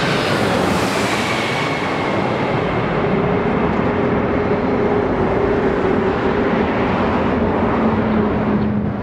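Jet engines of a Boeing 747-400 on landing approach, loud and steady as the airliner passes low overhead. A whine drops slightly in pitch in the first couple of seconds, and the high hiss fades as the jet moves away, leaving a lower steady drone.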